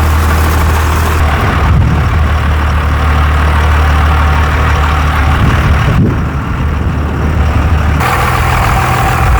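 Truck engine running just after being started, idling with a steady low hum; its note shifts a few times, about a second and a half in, around six seconds and again around eight seconds.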